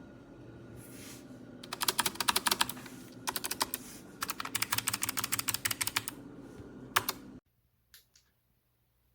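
Fast typing on a Logitech low-profile mechanical keyboard: three quick runs of sharp key clicks with short pauses between them, then a single keystroke before the sound cuts off suddenly.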